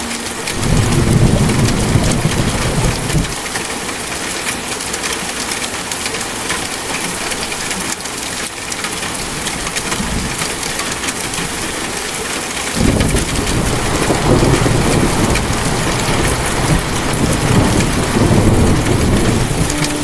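Steady rain falling, with a low rumble of thunder for the first few seconds and another rumble starting about two-thirds of the way through.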